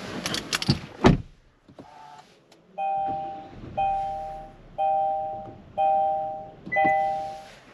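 A single thump about a second in, then the Kia ProCeed's two-note warning chime rings five times, about a second apart, each ring fading out: the rear-seat reminder alert telling the driver to check the rear seats.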